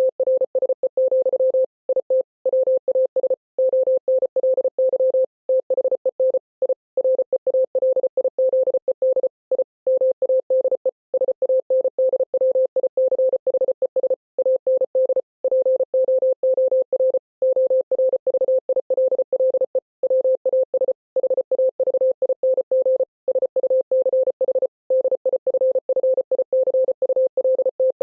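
Morse code sent as a single mid-pitched beep tone, keyed rapidly on and off in dots and dashes with brief gaps between letters and longer gaps between words, spelling out a text.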